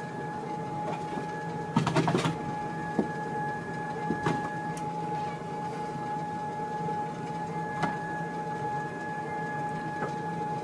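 Sole treadmill running: a steady motor hum with a constant whine over it, and a few short knocks, the loudest cluster about two seconds in.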